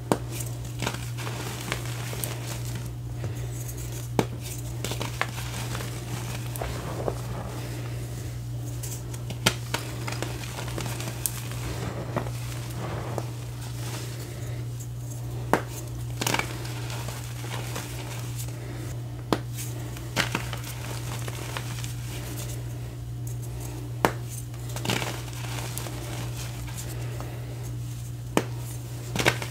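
Reformed gym chalk blocks squeezed and crushed by hand in a bed of loose chalk powder: a soft crumbling crunch, broken by sharp snaps every few seconds as pieces crack, over a steady low hum.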